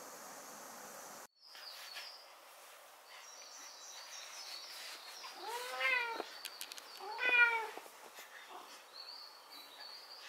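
A cat meowing twice, a few seconds in, the second meow louder than the first.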